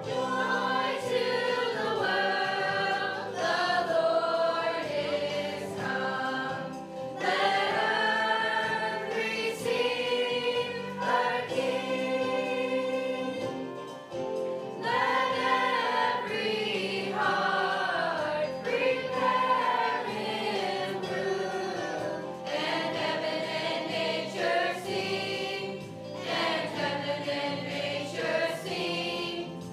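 A group of young voices singing a song together, choir-style, in long held phrases with short breaks between them.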